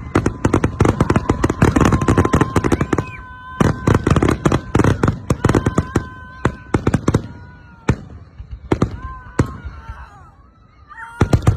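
Fireworks going off: a rapid run of crackling bangs, thinning to scattered single reports after about three seconds. Steady whistling tones run through the middle for several seconds.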